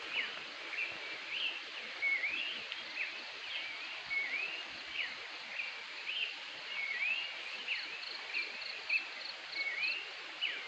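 Birds calling: short whistled notes that slur up and down, repeated about once or twice a second, over a steady background hiss. About three quarters of the way through, a quick run of higher, shorter notes joins in.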